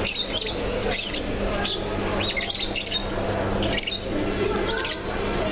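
Caged birds squawking and chirping in short calls repeated every half second or so, over a steady low hum.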